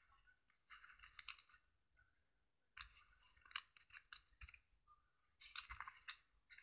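Faint clicking and scratching in three short clusters, about a second in, again from three to four and a half seconds, and near six seconds.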